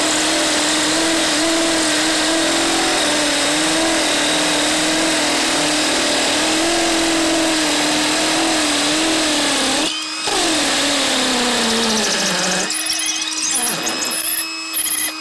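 Makita XPH07 brushless hammer drill on speed 2 in hammer mode, driving a masonry bit into a concrete block: a steady motor whine over the rattle of the hammer action. About ten seconds in it cuts out for a moment, then runs again with its pitch sinking as it slows, and goes in short stop-start bursts near the end.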